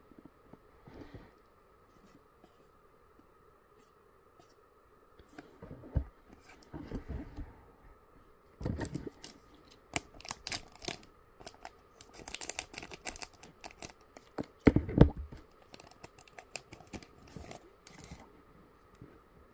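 Foil trading-card booster pack crinkling and crackling as it is handled and opened, a dense run of sharp crinkles from about nine seconds in until near the end. Before that, only a few light taps and slides of cards being handled.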